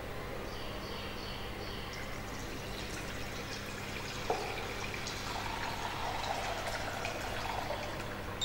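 Milk being poured from a jug into a steel saucepan: a light knock about halfway through, then a steady splashing stream of liquid into the pan.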